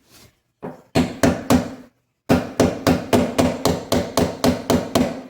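Hammer blows on the mounting ring of a garbage disposal being installed under a sink: a few blows, a brief pause, then a steady run of about three to four sharp blows a second, tightening the unit onto its sink flange.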